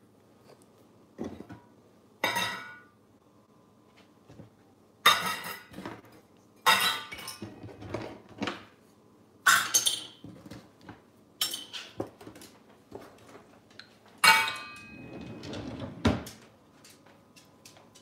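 Small stainless-steel bowls clanking and rattling on a stone countertop as an African grey parrot knocks them about with its beak: about ten sharp, irregularly spaced metal clatters, each with a short ring.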